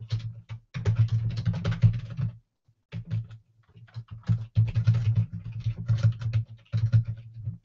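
Rapid typing on a computer keyboard: a quick run of key clicks that stops briefly about two and a half seconds in, then carries on.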